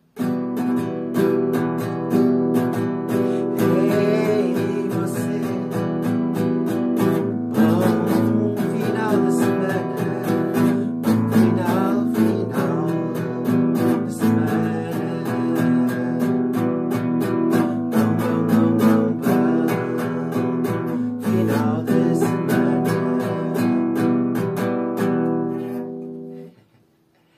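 Nylon-string classical guitar strummed in quick chords with a Chinese coin used as a pick, with a man singing along. The playing stops about a second before the end.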